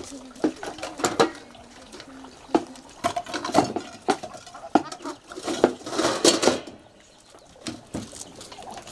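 Metal pots and bowls clattering and knocking as they are set down and stacked on a wooden dish rack, a run of sharp clinks that thickens in the middle.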